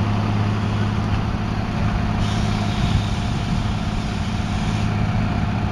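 Large truck engine running steadily, a low, even drone. A hiss joins about two seconds in and stops near the five-second mark.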